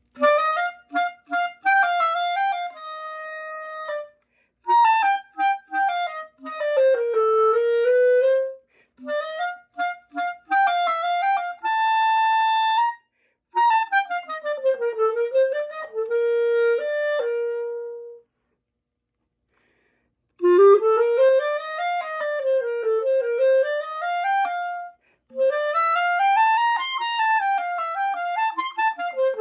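Solo wind instrument playing a slow melody in phrases, with short rests between them and one longer pause of about two seconds a little past the middle.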